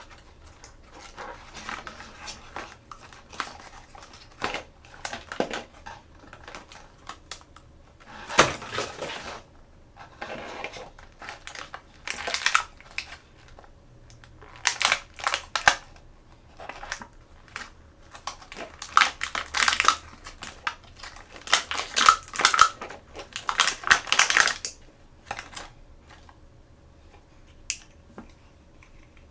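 Toy packaging being opened by hand: crinkling and crackling plastic wrap in short bursts, with the light clicks and taps of small plastic toys and parts being handled. It thins out to a few scattered clicks near the end.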